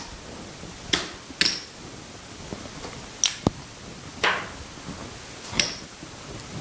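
Casino chips clacking against each other as a hand picks them up and sets them down on a craps table: about five sharp, separate clicks spread a second or more apart.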